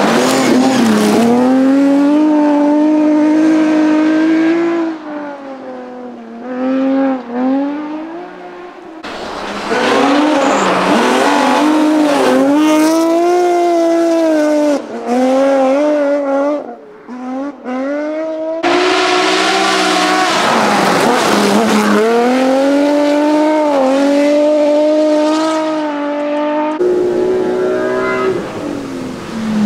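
BMW rally car engines at full throttle, the revs climbing through the gears and dropping as the driver lifts, with short spells where the engine note falls away. Several separate runs follow one another, each starting abruptly.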